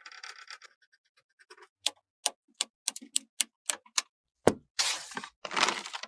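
A run of about eight sharp clicks, a little faster toward the end, then a single loud knock and two short scraping rustles near the end.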